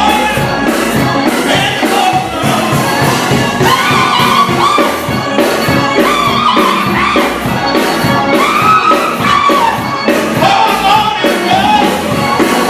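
Gospel music with choir singing over a steady beat.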